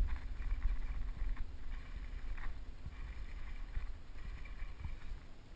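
Steady low rumble of wind on the microphone and water lapping against a small fishing boat's hull, with a few faint ticks.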